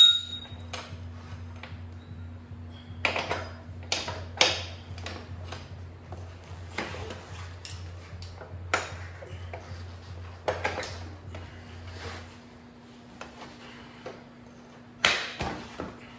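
Irregular metal clinks and knocks as a dirt bike's rear axle is worked through the wheel hub, swingarm and brake caliper bracket, with a short ringing ping at the start. A steady low hum runs underneath and stops about twelve seconds in.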